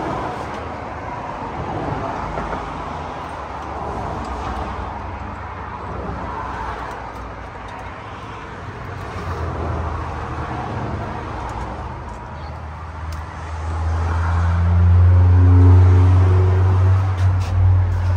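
Traffic noise, then a nearby vehicle engine running with a low, steady drone that swells over the last few seconds and eases off again.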